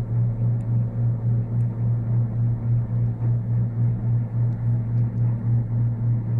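Peke-face Persian kitten purring while being stroked: a steady low hum that pulses evenly about three times a second.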